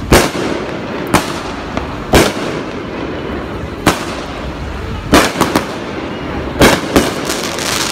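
Fireworks exploding: a string of sharp bangs at uneven spacing, roughly one a second, with a quick cluster of three about five seconds in and two more close together near the end. A steady background noise runs beneath them.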